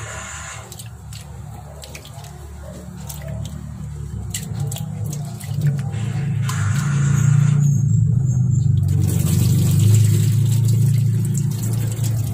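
Water splashing in a stainless steel sink as glutinous rice is swished and rubbed by hand in a metal bowl for its second rinse, with light clicks of fingers and grains against the bowl. It grows louder from about four seconds in, and near the end the cloudy rinse water is poured off.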